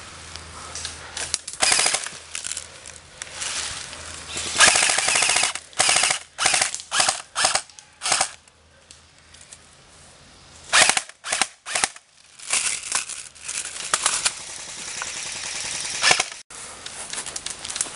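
Airsoft rifle firing in rapid full-auto bursts: several rattling strings of shots, each about a second long, with short gaps between them and a quieter lull partway through.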